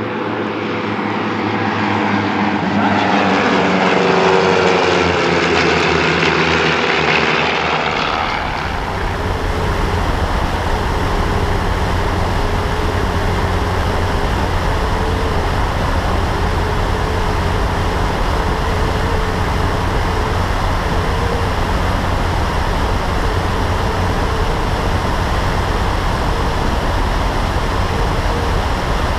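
A formation of propeller planes flying past, their engine drone sliding down in pitch as they go by. About eight seconds in it changes abruptly to the steady engine and wind noise picked up by a camera mounted on one plane's wing in flight.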